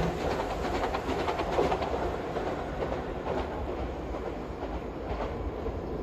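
A train running past, its wheels clattering over rail joints in a string of irregular clicks over a steady rumble that slowly grows fainter.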